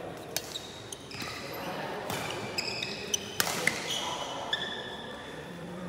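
Badminton rally: sharp cracks of rackets striking the shuttlecock, several times, mixed with short high squeaks of shoes on the court floor.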